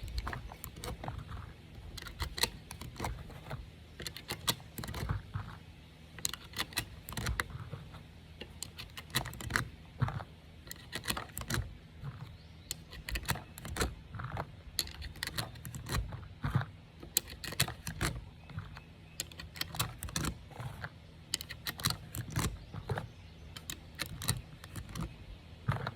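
9mm brass cartridges being pushed into a pistol magazine, a run of irregular metallic clicks and rattles.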